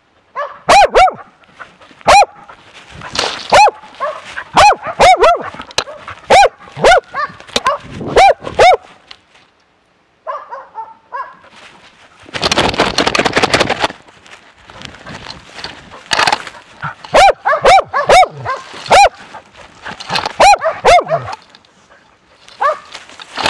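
A dog barking loudly and repeatedly, close to the microphone, as it bays in a bear-baying trial, with barks coming about every half second. The barking stops for a few seconds about halfway, where a burst of rustling noise lasts about two seconds, and then resumes.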